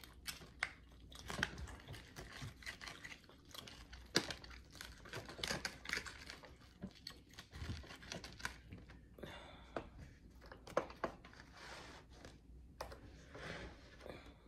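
Rolling pizza cutter forced through a loaded pizza's crisp crust and toppings: a run of irregular crunches, crackles and clicks. The wheel is dull, so each stroke is a struggle.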